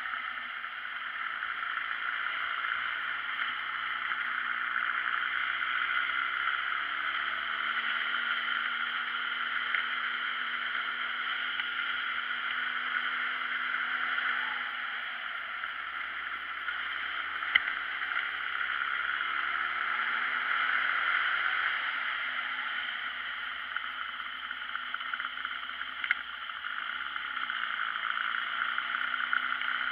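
Steady wind rush over the microphone of a moving motorbike, with a faint engine note underneath that rises and falls as the rider slows and speeds up through bends. A couple of small clicks come through partway along.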